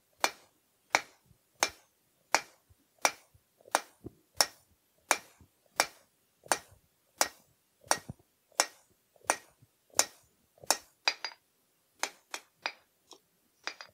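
Hand hammer striking a hot steel bar on the anvil in a steady rhythm, about three blows every two seconds, each with a short metallic ring, as the end is drawn down into a taper. In the last few seconds the blows turn lighter and quicker.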